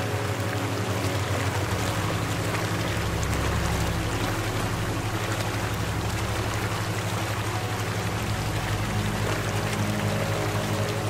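Steady rushing water, like a stream, over a soft ambient music drone whose low held notes change every few seconds.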